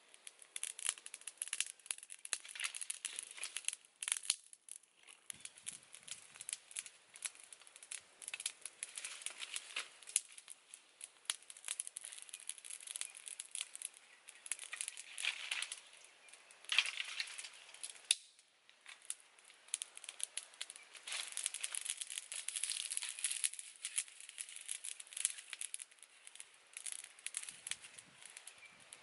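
Dry leaves and small twigs rustling and crinkling as they are handled and laid on a smouldering campfire to get it to catch. A dense, irregular crackle with a couple of brief lulls.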